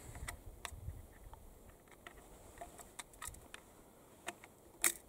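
Faint small clicks and handling noises from the lock of a 175-year-old percussion smoothbore as a percussion cap is fitted onto the nipple, with a sharper click near the end.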